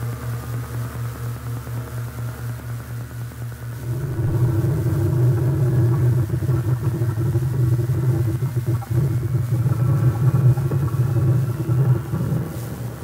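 Electronic drone soundtrack: a low hum pulsing a few times a second, with a faint tone slowly rising in pitch. About four seconds in it swells into a louder, steady, denser drone.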